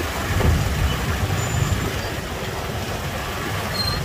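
Slow, dense scooter and car traffic in a jam: motorbike engines running close by, with a steady low rumble.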